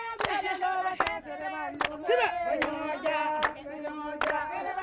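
A group of women singing together, with a steady beat of hand claps running under the song.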